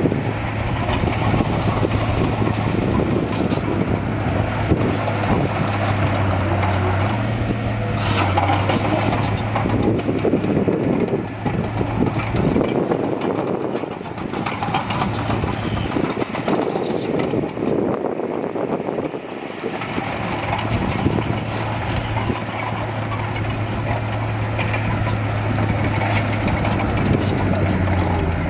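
Heavy diesel earthmoving machinery running with a steady low engine hum over rough mechanical noise. The hum fades out for several seconds midway, then comes back.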